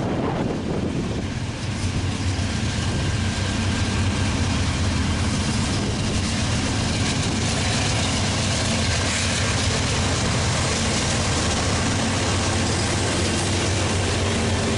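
Union Pacific GE diesel-electric locomotives leading a freight train passing close by, their engines running with a steady low drone.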